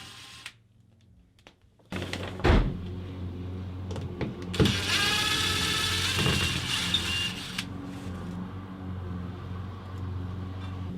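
Cordless drill-driver whining briefly as it runs screws out, first a short run that stops half a second in, then a longer run of about three seconds, with a few knocks and a steady low hum underneath.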